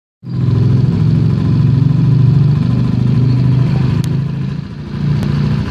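A vehicle engine idling steadily, with a fast, even firing pulse. Two sharp clicks come near the end, about a second apart.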